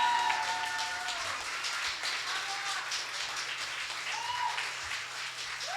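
Audience applauding at the end of a live acoustic song, as the last guitar notes fade out in the first second. A few short voices call out from the crowd during the clapping.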